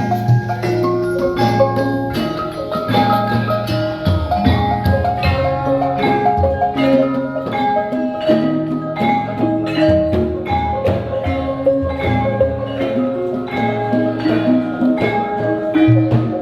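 Background music led by bright mallet-percussion melody notes over a steady beat.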